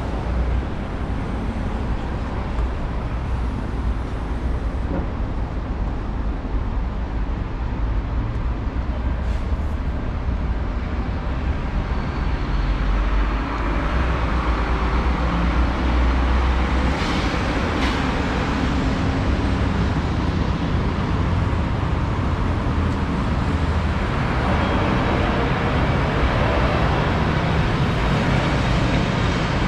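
City street traffic: cars and buses running and passing, a steady rumble of engines and road noise that grows a little louder about halfway through.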